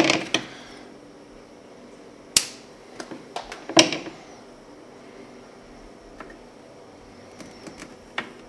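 Handling clicks and knocks of dosing-pump tubing and acrylic dosing-container lids as the tubes are fitted: sharp clicks at the start, about two and a half seconds in and about four seconds in, with lighter ticks between and one near the end, over a faint steady hum.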